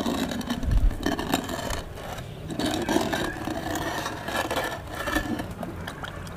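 Wooden pestle scraping and churning against a clay bowl as soaked almond and poppy-seed paste is ground into milk for sardai, with an occasional knock of wood on clay.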